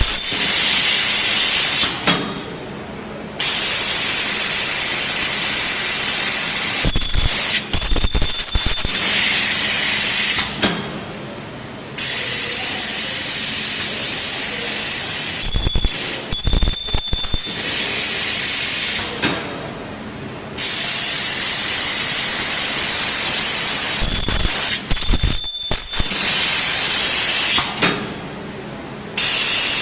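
Ultrasonic PVC cylinder-forming welding machine working in repeating cycles: long stretches of loud hiss, broken about every eight seconds by a few clunks and a brief high-pitched tone.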